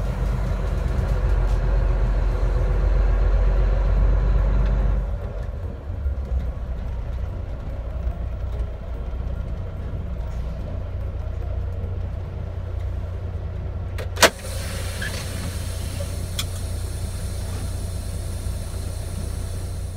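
Semi truck's diesel engine heard from inside the cab as it pulls along: a low, steady rumble that is louder for the first five seconds or so, then settles to a quieter drone. One sharp click about fourteen seconds in.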